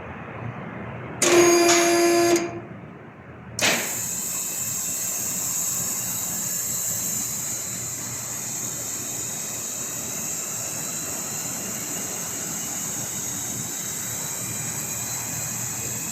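A loud horn-like tone sounds once for about a second, then after a short lull a steady hiss with high whistling tones sets in suddenly and carries on.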